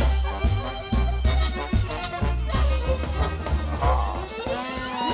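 Lively instrumental music with a pulsing bass line and drums, with a sliding pitch glide near the end.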